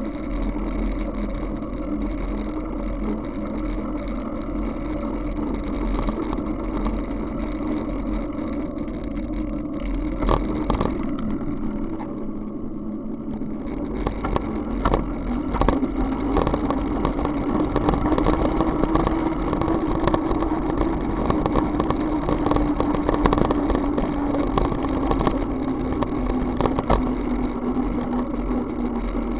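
Ride noise from a bicycle on wet asphalt: a steady drone that rises and falls slightly with speed, with low rumble from wind on the microphone. From about halfway on, small rattles and knocks come in, as from road bumps.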